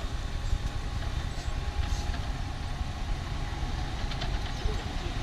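Off-road 4x4's engine running steadily at low revs, a continuous low rumble.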